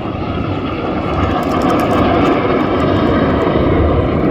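Loud roar of Red Arrows BAE Hawk jets flying past in a display pass, building about a second in and then holding steady.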